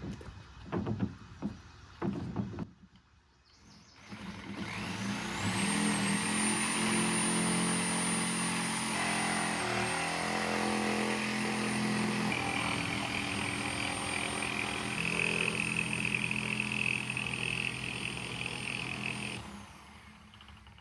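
A few knocks, then a power saw's motor spins up with a rising whine and runs steadily for about fifteen seconds as it cuts through a board, dipping briefly in pitch midway, before stopping near the end.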